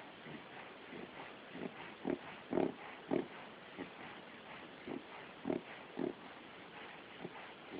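A pet's reverse sneeze: a run of short, sharp inhalations through the nose, about two a second.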